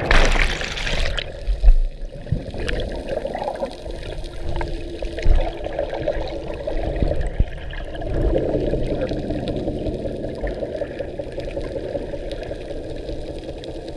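Sea water heard from a camera going under: a splashing rush of bubbles in about the first second, then the muffled, low rush of water underwater, broken by a few dull thumps.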